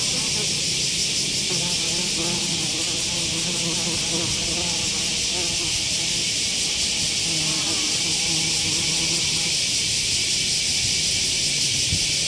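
Wing buzz of a flying insect close by, its pitch wavering as it moves around, heard twice: about two seconds in and again near eight seconds. Under it runs a steady high-pitched hiss.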